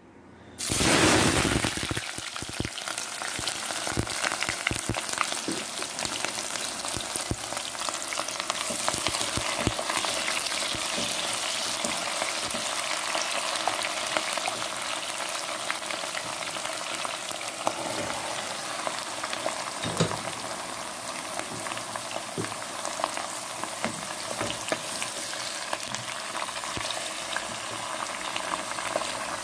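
Sliced onions and then bell peppers frying in hot oil in a stainless steel pot. The sizzle starts suddenly and loudly about half a second in, then carries on steadily, with scattered clicks and scrapes as a wooden spatula stirs the vegetables.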